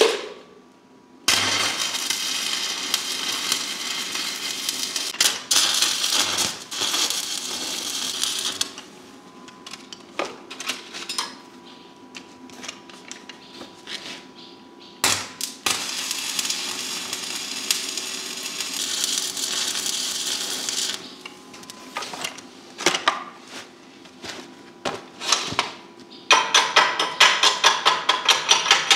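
Stick (MMA) arc welding on steel: two runs of steady arc crackle and hiss, each several seconds long, with scattered clinks of metal handling between them. Near the end, rapid metallic tapping at about five or six blows a second.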